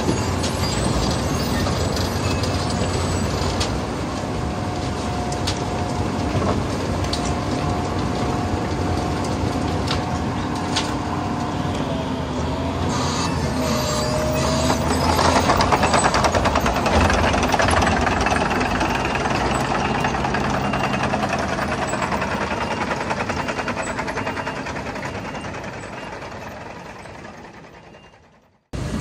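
Wirtgen W100 CFi cold planer milling off asphalt, its engine and cutting drum running steadily under a faint held whine, while the conveyor drops planings into a tipper truck. The noise grows louder for a few seconds a little past halfway, then fades out just before the end.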